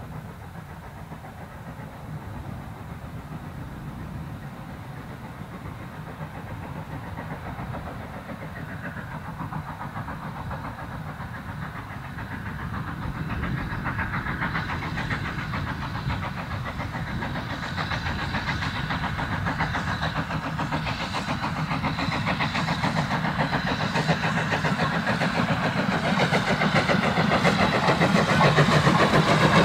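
SECR H Class 0-4-4 tank engine No. 263 approaching under steam. Its exhaust beats grow steadily louder as it draws level near the end.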